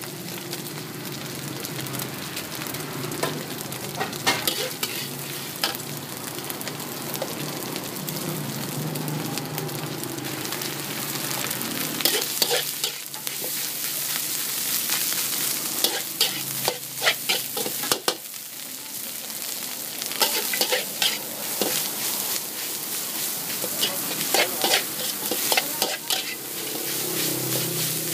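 Metal spatula repeatedly scraping and clanking against a large steel wok while egg, beef and rice fry with a steady sizzle. The scrapes come in quick clusters every few seconds.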